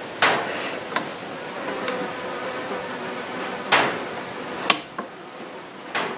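A handful of sharp, irregular knocks and taps from handling the arrow and tools at a bench vise, a few with a short ringing tail. The loudest come about a quarter second in and near four seconds in.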